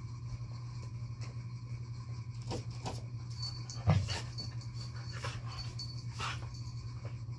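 A husky making a few short whining sounds as it plays, with a single thump about four seconds in, over a steady low hum.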